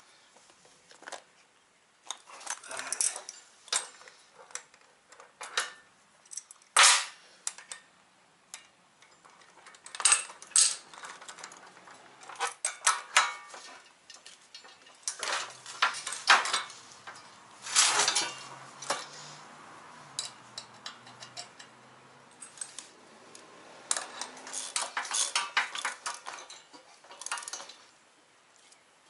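Steel adjustable wrenches clinking, clanking and scraping against a wheel bolt and nut as they are tightened. The sharp metallic clicks come irregularly in clusters with pauses between, with a few louder clanks.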